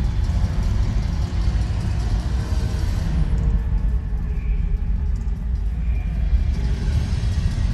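Loud, bass-heavy amplified music from an arena sound system accompanying a Mummers fancy brigade performance, its low end rumbling and dominating.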